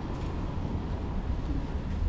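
Outdoor street ambience: a steady low rumble of wind on the microphone under a faint even hiss, with no distinct events.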